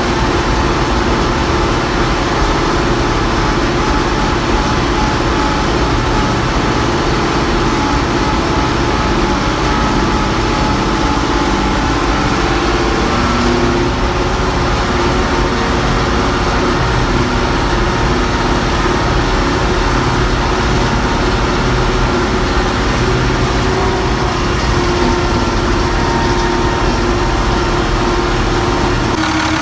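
Allis-Chalmers 210 tractor's six-cylinder diesel engine running steadily, its pitch shifting slightly a few times, and changing abruptly near the end.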